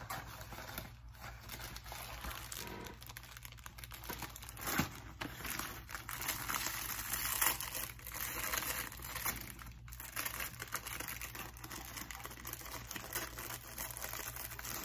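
Crinkling and rustling of a Jaffa Cakes packet being opened and handled, with many small crackles and a few louder rustles.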